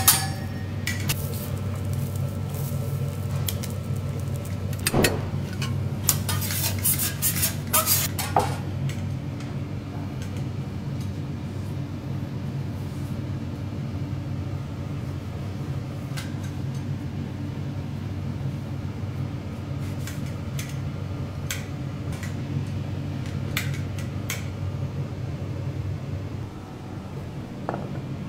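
Plates and utensils clinking, a cluster of clinks in the first eight seconds and a few scattered later, over a steady low hum of a ventilation hood.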